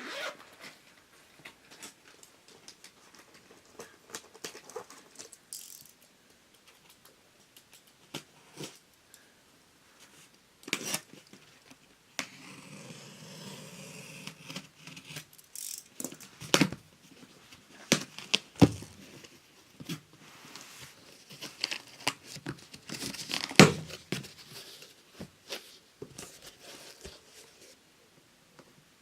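Packaging being opened and handled: tearing and crinkling, with many scattered knocks and clicks and a longer rustle about halfway through.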